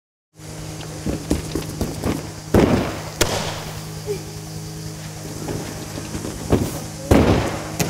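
Gymnasts tumbling: quick footfalls and knocks on the tumbling track, with two loud thuds of a takeoff and a landing on a crash mat, about two and a half seconds in and again near the end.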